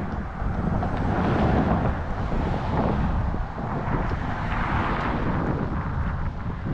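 Wind buffeting the camera microphone: a steady, rumbling noise.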